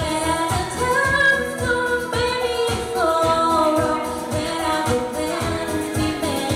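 Live acoustic guitar and a singer performing a pop song cover: the voice holds long notes that slide up between pitches, over a steady beat of strummed or tapped guitar strokes.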